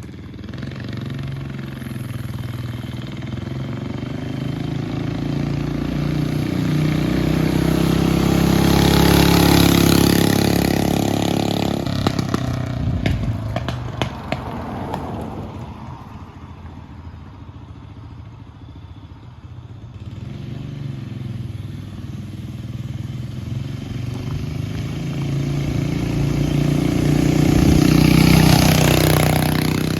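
Mini bike's small engine running on a test ride, passing by twice: it grows louder as it comes closer and fades as it moves off, peaking about a third of the way in and again near the end. A few sharp clicks come around twelve seconds in.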